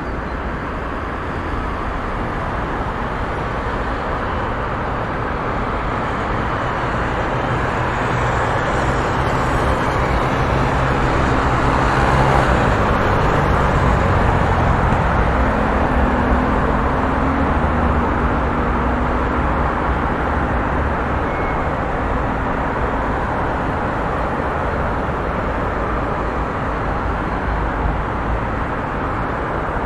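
Continuous road traffic on a busy city street: a steady wash of engines and tyre noise. It swells around the middle as vehicles pass close, with engine hum standing out, then eases back.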